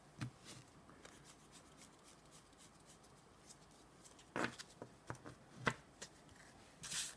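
Faint handling noises of playing cards and a styrofoam block on a cloth mat: a soft tap near the start, a few quick clicks and taps after a quiet pause, and a brief rustle near the end as the foam block is picked up.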